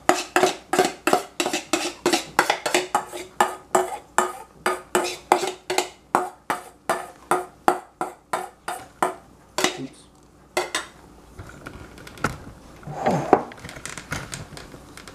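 Silicone spatula knocking and scraping against a glass mixing bowl while folding whipped egg whites into tiramisu mascarpone cream, about three to four strokes a second, the bowl ringing faintly under each knock. About ten seconds in the strokes stop, with one more knock after that.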